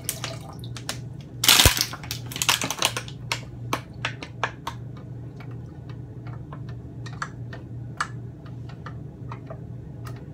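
Wooden spoon clicking, tapping and scraping against a stainless steel pot while a sauce is stirred, an irregular run of clicks over a steady low hum. A brief loud rustle with a knock comes about a second and a half in.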